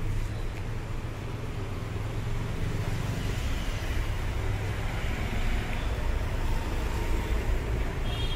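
Steady street traffic noise with a low rumble, without distinct events.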